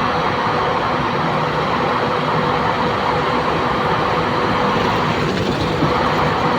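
Heavy engines running steadily: a dense, even mechanical noise with a constant low hum, with no starts, stops or changes.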